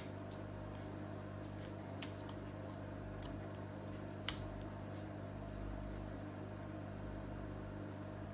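Steady low electrical hum in a small room, with four faint sharp clicks of small-part handling while tape is worked off a laptop's LCD panel.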